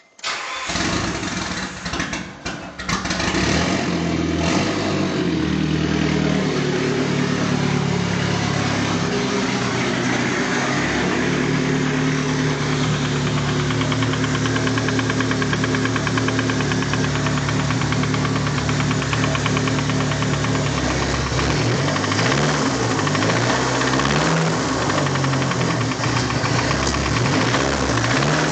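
Nissan SR20DET turbocharged 2.0-litre four-cylinder engine starting up, running unevenly for the first couple of seconds, then idling steadily with a knock that the owner takes for rod knock. About three-quarters of the way through, the revs rise and fall a few times before settling back to idle.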